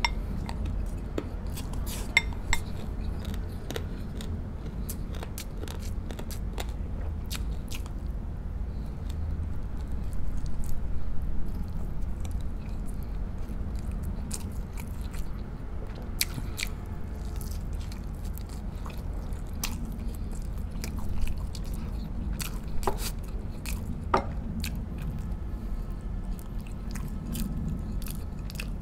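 A person chewing and biting into braised pork spare ribs, with scattered short sharp clicks throughout.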